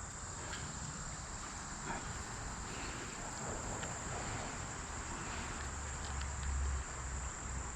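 Steady high-pitched insect drone, with faint scattered rustles and ticks and a low rumble swelling briefly near the end.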